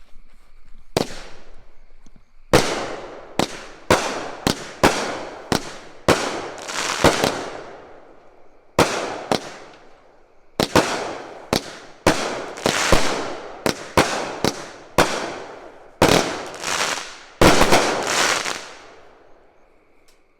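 Consumer fireworks going off: about two dozen sharp bangs in irregular succession over some seventeen seconds, each trailing off in a short fading tail.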